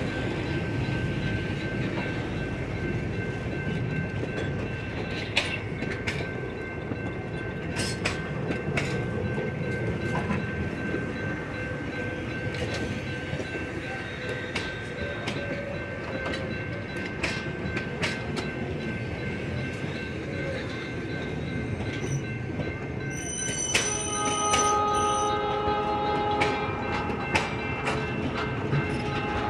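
Passenger coaches rolling slowly past, wheels clicking irregularly over the rail joints above a steady rumble, with a thin steady high squeal throughout. In the last few seconds a pitched tone joins in, sounding in short repeats.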